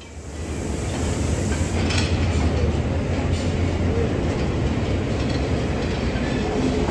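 Passenger train hauled by Class M7 and M5C locomotives rolling along a station platform, heard from inside a carriage: a steady low rumble that builds up over the first second, with a few clicks of the wheels over rail joints.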